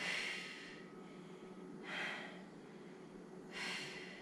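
A woman breathing hard from the effort of resistance-band glute bridges: three short, sharp breaths about two seconds apart.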